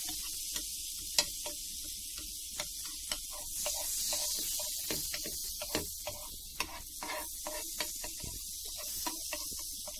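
Melted butter sizzling with a steady hiss in a flat pan on low heat, while a metal spoon spreads it over the pan, tapping and scraping against the pan now and then.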